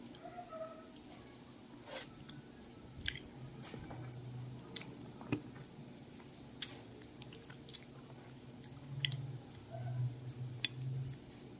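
Someone chewing ripe sugar apple (atis) close to the microphone: soft, wet chewing and squishing of the fruit's flesh, with scattered small mouth clicks and smacks.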